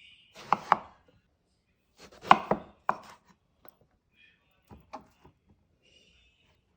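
Kitchen knife chopping vegetables on a cutting board: a few sharp chops in small groups, with light scraping in between.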